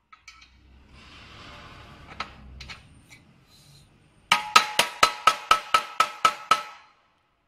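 A mallet striking a metal tube of a display-stacking frame: about ten quick blows, roughly four a second, each with a short metallic ring, that start a little past halfway and then stop. Before them comes a few seconds of handling and rustling with a single knock.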